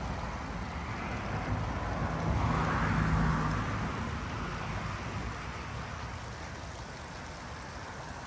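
Motorised Lego City passenger train running over plastic track: a steady rattling rush of wheels and motor that swells a few seconds in and then eases, with a low wind rumble on the microphone.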